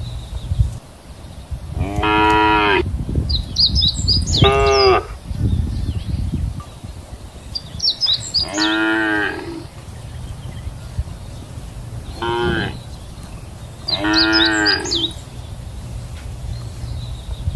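Cattle mooing, five calls of about half a second to a second each, one of them short.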